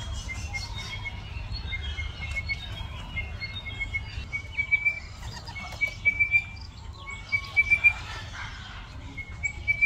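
A bird calling over and over: short runs of quick, high chirping notes, each run climbing slightly in pitch, repeated every second or so, over a steady low rumble.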